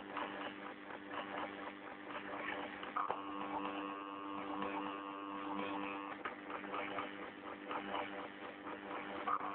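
Stepper motors of a homemade CNC machine humming as they drive the axes, with a steady pitched whine from about three to six seconds in and scattered clicks throughout.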